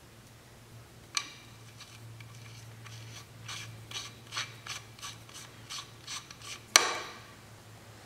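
Mechanical clicking: a single sharp click, then a run of short clicks at two or three a second, ending in one loud knock.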